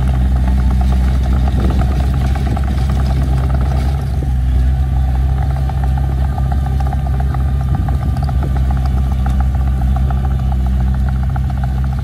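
Small crawler bulldozer, a Komatsu D21P, running its diesel engine steadily under load while it pushes dirt, with the continuous clatter of its steel tracks over the engine note.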